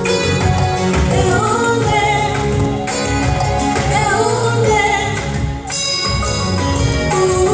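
A woman singing a Zimbabwean gospel song over amplified backing music with a heavy bass line.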